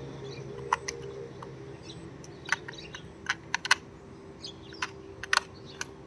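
Sharp plastic clicks and taps as AA batteries are pushed into the battery compartment of a plastic radio-control transmitter, about a dozen irregularly spaced clicks.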